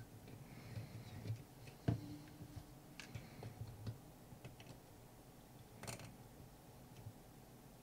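Faint scattered clicks and taps of a screwdriver and fingers handling small parts on an ECU circuit board, as the screws holding the power transistors are undone and the parts eased away. The sharpest tap comes about two seconds in, with a brief ringing after it, and a bright click near six seconds.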